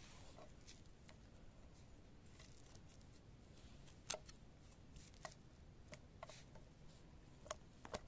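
Near silence with a few faint, sharp taps of a kitchen knife and raw pork strips on a wooden cutting board, scattered through the second half as the meat is sliced and laid out.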